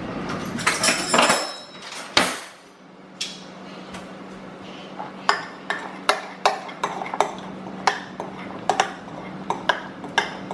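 A utensil stirring slime mixture in a bowl: scraping and knocking at first, then a run of sharp clinks against the bowl, about two a second, from about five seconds in.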